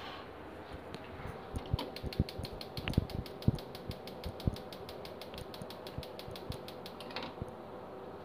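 Gas hob's electric burner igniter clicking rapidly, about seven clicks a second, as the burner is lit; the clicking starts about a second and a half in and stops about seven seconds in. A few dull knocks come early in the clicking, over a steady hum.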